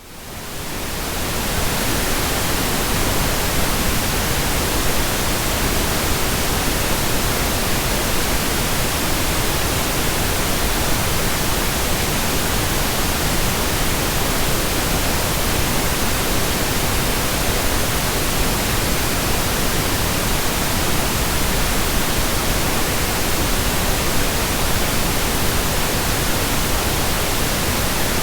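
Pink noise test signal, the kind used to equalize and calibrate audio systems: a steady, even hiss that fades in over the first second or two and then holds level.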